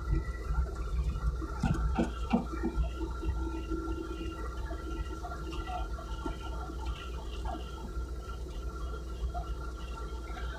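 Mini excavator engine running steadily with a steady whine over a low hum, and a few knocks about two seconds in.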